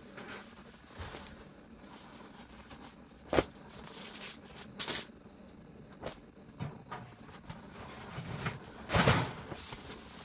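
Scattered handling knocks and rustles: a sharp knock about three seconds in, a few short scrapes, and a louder rustling thump near the end.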